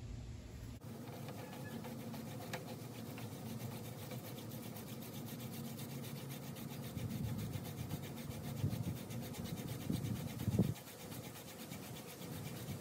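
Hand drill friction fire: a horseweed spindle spun back and forth between the palms, its tip grinding in the divot of a wooden fireboard, a steady rubbing. It starts just under a second in, grows louder in the second half and dips briefly near the end before going on.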